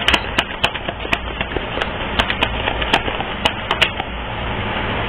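A deck of cards being shuffled by hand: a run of sharp, irregular snaps, a few a second, that stops about four seconds in. A steady low hum runs underneath.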